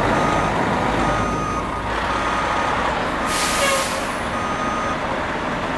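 Fire truck backing up: its reversing beeper sounds about once a second over the running engine, with a short hiss of released air about three and a half seconds in.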